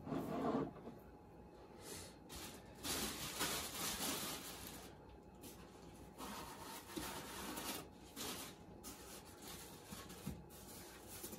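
Faint rustling and rubbing of packaging being handled and rummaged through, in irregular bursts with quieter gaps.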